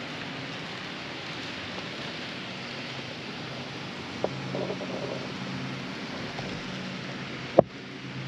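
Steady room noise with a low hum in a model railroad exhibit hall, with a faint click about halfway through and a sharp click about a second before the end.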